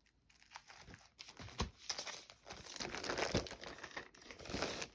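Paper rustling and crinkling in irregular handling noises as vintage paper doll sheets and books are shuffled and moved.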